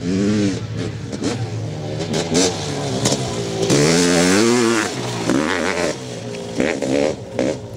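Off-road motorcycle engine revving as the bike rides past close by, its pitch rising and falling with the throttle over and over, loudest at a big sweep about four seconds in.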